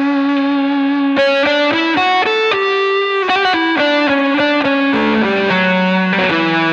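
Gibson SG electric guitar through a Ryra Klon overdrive pedal into a 1969 Marshall JMP 50 amp with a Greenback speaker, playing a distorted lead line. A held note sustains for about the first second, then a quick run of single notes climbs higher and moves back down lower in the second half.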